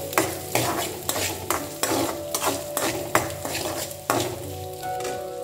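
Perforated metal ladle scraping and stirring coconut pieces frying in ghee in a metal kadai, about three strokes a second over a light sizzle. The stirring stops about four seconds in.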